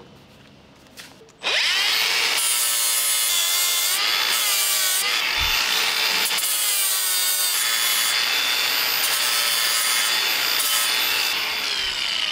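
Angle grinder spinning up with a rising whine about a second and a half in, then grinding on the steel final drive housing, cleaning up the fresh tack welds. It holds a steady high whine with a rasping hiss that comes and goes as the disc touches and leaves the metal. Near the end it is switched off and winds down with a falling whine.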